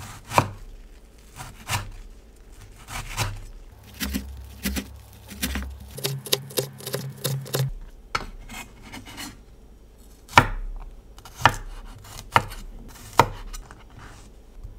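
Chef's knife slicing green onion and garlic on an end-grain wooden cutting board: irregular taps of the blade on the board, a quick run of them around six to seven seconds in, then a few sharper single chops about a second apart in the second half.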